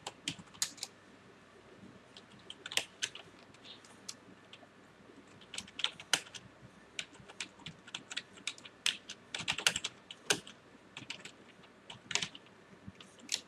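Typing on a computer keyboard: runs of quick key clicks in irregular bursts, with short pauses between the runs.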